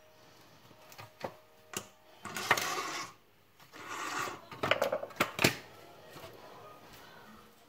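Hand work on a cordless vacuum's disassembled motor unit: a few sharp plastic clicks, and two stretches of scraping and rattling as the parts are handled, the second ending in a loud click.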